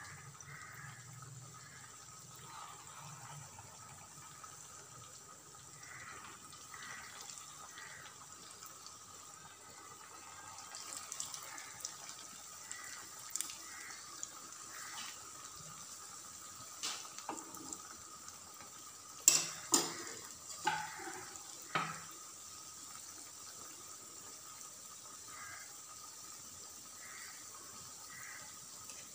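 Potato rings deep-frying in hot oil in a frying pan: a steady sizzling and bubbling, while more rings go into the oil. Four sharp knocks come about twenty seconds in and are the loudest sounds.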